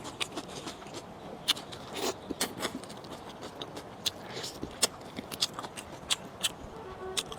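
Close-miked mouth sounds of eating: irregular sharp clicks and smacks, several a second.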